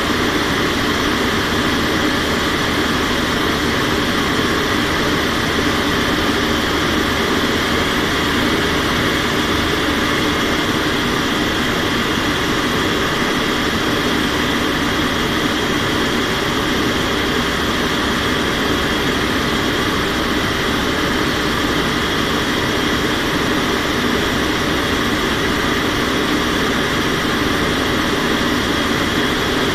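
Steady noise of an aircraft in flight heard from inside the cockpit: engines and rushing air at an even level, with a few faint steady tones in it.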